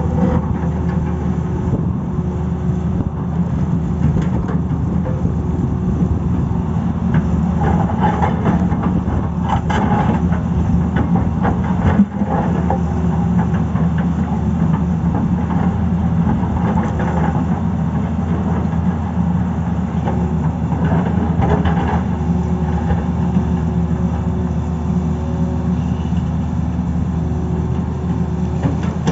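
Tata Hitachi crawler excavator's diesel engine running steadily under working load. The middle stretch has bursts of scraping and knocking as the bucket works the rock and earth, and there is one sharp knock about twelve seconds in.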